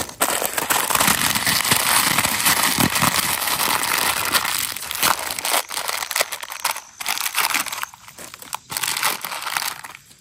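Crinkling and crunching of dry chatpate ingredients being handled and crushed, dense for about six seconds and then in shorter bursts.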